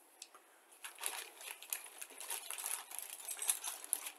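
Clear plastic bag holding a plastic model kit's sprues crinkling and rustling as it is picked up and handled, with the parts shifting inside. It starts about a second in as a dense, crackly rustle.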